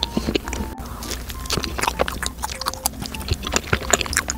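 Close-miked chewing of a soft bagel filled with fresh cream and fruit: a quick run of short mouth clicks and smacks.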